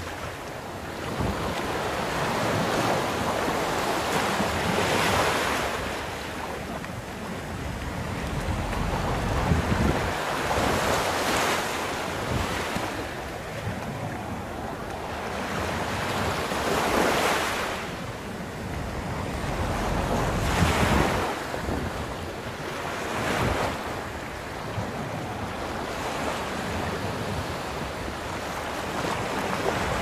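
Sea waves breaking and washing up a sandy beach, the surf swelling and fading every few seconds. Wind buffets the microphone underneath.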